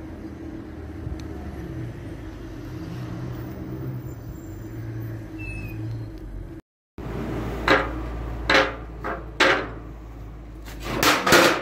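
A steady low drone, then after a cut several loud metal knocks and clanks as steel door-frame sections are handled, the loudest group near the end.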